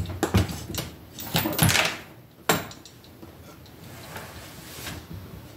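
Metal knocks, rattles and scraping as the bare frame of a Yamaha PW50 minibike is lifted up off its engine and rear swingarm assembly. Several knocks and a longer scraping rattle come in the first two seconds, a sharp clunk follows, and then quieter handling noise.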